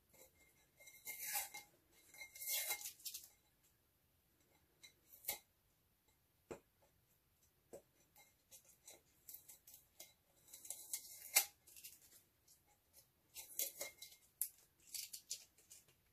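Blue painter's tape being peeled off a spray-painted glass by hand: short crackly tearing rasps in several bursts, with a few sharp ticks in between.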